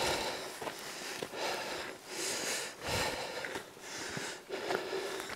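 A person breathing heavily and out of breath from walking uphill, with a hard breath about every second.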